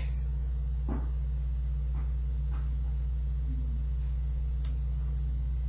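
Steady low electrical hum in the recording, with a few faint soft clicks.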